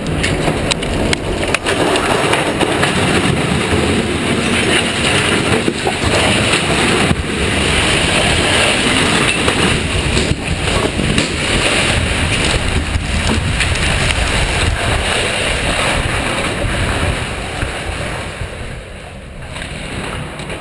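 Loud, steady rushing noise of the blast wind, dust cloud and flying debris sweeping over the camera at the foot of a 2,000-foot structural steel guyed TV tower as it is felled by explosives, with a few scattered knocks; it dies down near the end.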